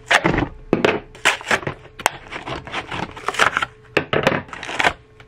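Plastic-and-card blister packs of scissors being torn and pried open by hand: irregular crackling and snapping of stiff packaging, with the scissors knocking on the wooden bench.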